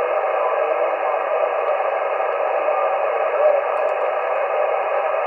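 HF transceiver's speaker giving steady band noise and static on the 40-metre amateur band, held to a narrow single-sideband voice passband. A faint voice surfaces briefly in the hiss.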